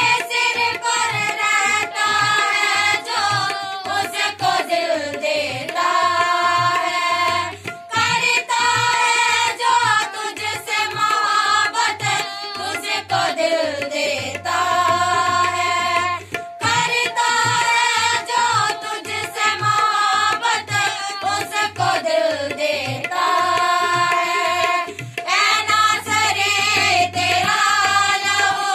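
A group of women singing a Hindi Christian worship song, with drum accompaniment keeping a steady beat.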